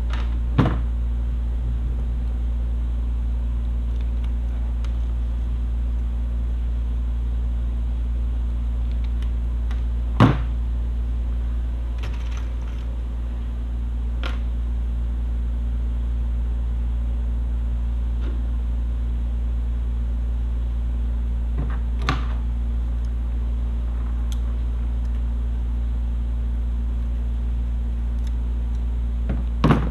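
A steady low hum throughout, with a few sharp clicks and snips of hand tools, about five, as wire is cut and stripped.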